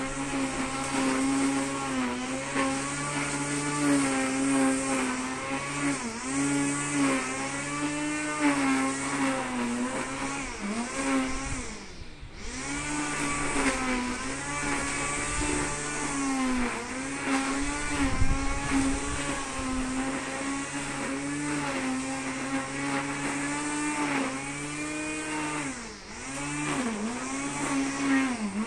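Two-stroke brush cutter running at high revs, its pitch dipping briefly and recovering again and again as the line or blade cuts into grass and brush. The revs drop for a moment about twelve seconds in.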